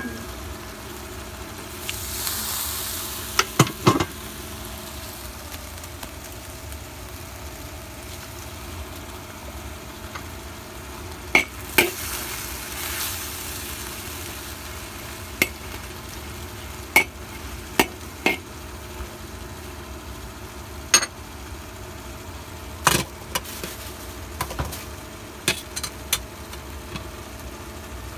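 Beef and bitter melon frying in a pan, with a sizzle that flares up twice. Scattered sharp knocks of a utensil against the pan sound over a steady low hum.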